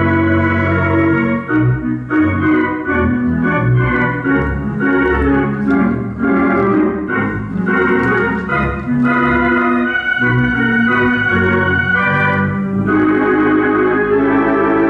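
Theatre organ playing: held chords, then a busier passage of short quick notes from about two seconds in, settling back into held chords near the end.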